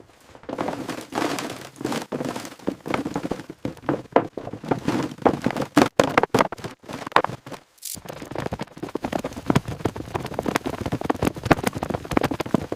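Dense, irregular crackling, rustling and knocking of cleanup work, debris and brush being handled, with a brief break about eight seconds in.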